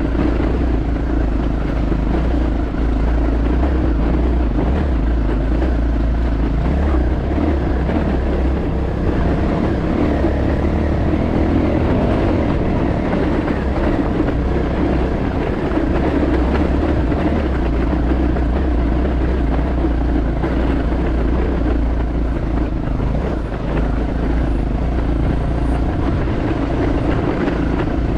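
Dirt-bike engine running steadily on a rough dirt track, under heavy low wind rumble on the microphone.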